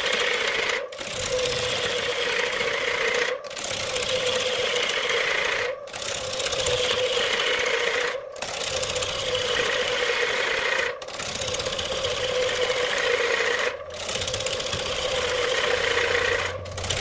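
Wood lathe spinning a large wooden blank while a hand-held gouge cuts into it: a steady motor hum under the rough scraping of the cut. The sound drops out briefly about every two and a half seconds.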